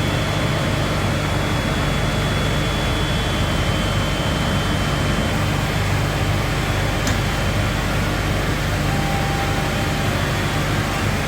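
MÜLLER VGU 4/71 sawmill saw running steadily: a constant machine hum with a thin high whine that fades out about two-thirds of the way through.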